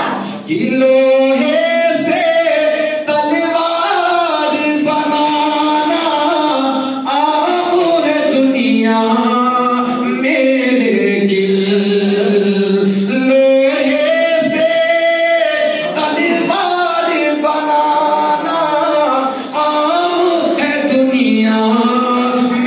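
A man singing Islamic devotional praise poetry (naat) without instruments, in long held notes that slide between pitches, with short breaks between phrases.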